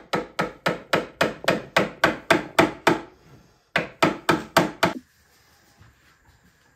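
Quick back-and-forth strokes of a steel hand tool cleaning out a notch cut into a solid birch stair tread, about four strokes a second. There is a short break about three seconds in, then a few more strokes that stop at about five seconds.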